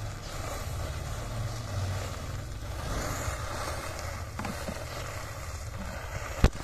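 A burning mass of matchsticks: a steady rushing flame noise with a low rumble and a few faint crackles, and a single sharp knock just before the end.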